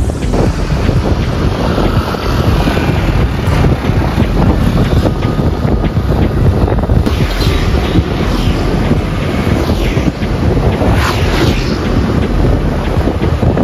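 Wind rushing and buffeting over the microphone of a rider on a moving scooter, a steady heavy rumble of wind noise.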